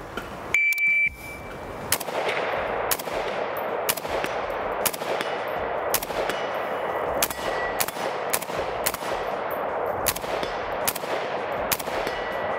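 A shot timer gives one short beep, then an FN SCAR 17 7.62×51 mm battle rifle fires a string of single aimed shots, roughly one a second, each ringing out in echo, in a timed drill that switches between a distant and a close target.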